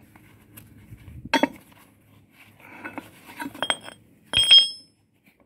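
Pieces of steel rail knocking and clinking as a cut-away section of the rail is worked loose and lifted out: a sharp knock just over a second in, a cluster of clinks around three seconds, and the loudest knock near four and a half seconds, ringing briefly.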